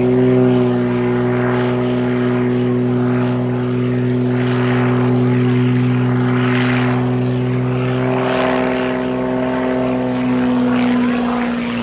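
Aviat Pitts S-2C aerobatic biplane's six-cylinder engine and propeller at high power: a loud, steady drone held with little change in pitch, easing slightly near the end.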